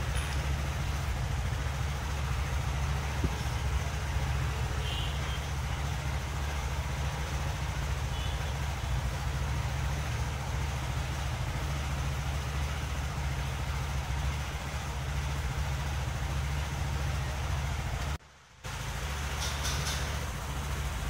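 A steady low mechanical hum, unbroken except for a brief dropout about eighteen seconds in.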